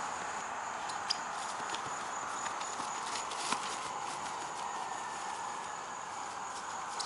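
Footsteps of a person sprinting and shuffling across a grass lawn, a few soft thuds standing out, over a steady high-pitched insect trill.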